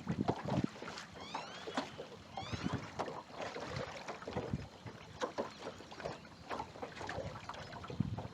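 Water lapping and small knocks against a fishing boat's hull. Two short runs of rising chirps come about one and two and a half seconds in.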